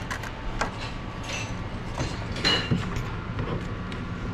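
Hands working the wiring and condensate pump assembly up into the metal casing of an air handler: scattered scrapes, rubs and small knocks, the loudest about two and a half seconds in, over a steady background hum.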